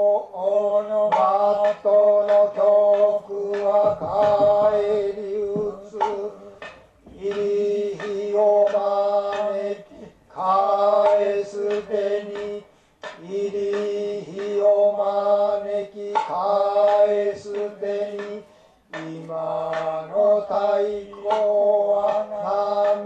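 A man's voice chanting in Noh/Kyogen style: phrases of a few seconds held on a steady pitch, with short breaks between them.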